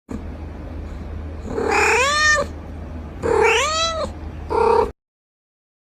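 A cat meowing three times: two long meows that rise and fall in pitch, then a short one, over a steady low hum.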